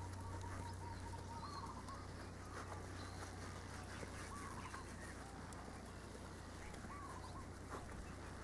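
A few short, wavering bird calls, one held steadily for about a second near the start, over a steady low hum.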